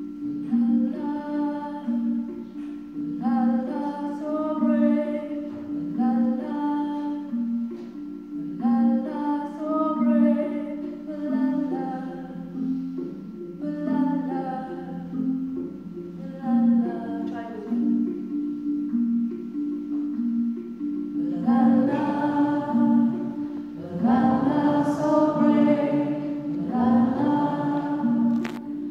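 A woman singing a simple repeated chorus over a mallet-struck wooden box instrument playing a steady two-note pattern. About two-thirds of the way through, the singing grows louder and fuller.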